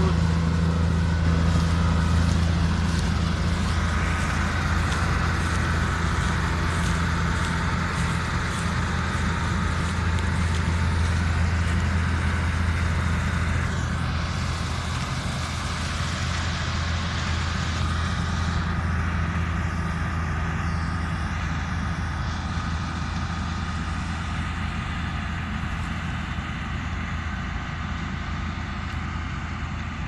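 Combine harvester's diesel engine running steadily as it cuts and threshes standing wheat, a constant low drone that slowly fades in the second half as the machine moves away.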